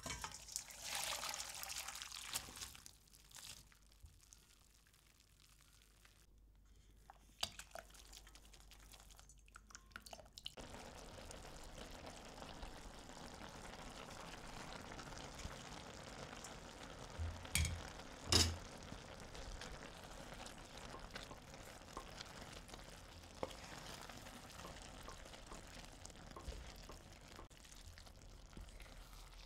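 Liquid poured into a cooking pan for the first couple of seconds. This is followed by a quieter stretch with a few light clicks, then from about ten seconds in a steady sizzle from the pan, broken by two sharp knocks of a utensil on the pan.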